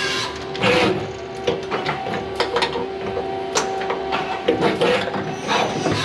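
Takamaz XC100 CNC lathe running its automatic cycle: the auto loader and machine mechanisms click and clunk over a steady machine whine. Two short rushes of hiss come, one under a second in and one near the end.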